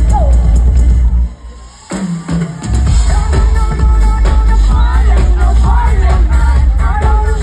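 Live pop band with drum kit and heavy bass backing a female lead singer, heard loud in the crowd. The music cuts out suddenly about a second in. After a short low note it comes back about a second and a half later, with drums and a sung melody.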